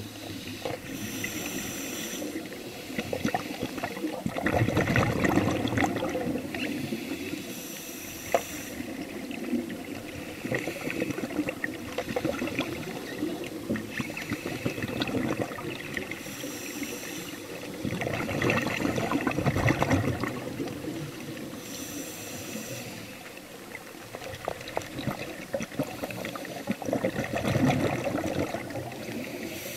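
Underwater sound of a diver's scuba regulator: a short hiss with each inhalation about every six to eight seconds, and gurgling bursts of exhaled bubbles in between, over a steady water noise.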